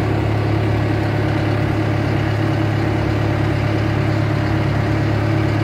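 Water taxi's engine running steadily under way: a continuous low drone, with the rush of wind and water around the boat.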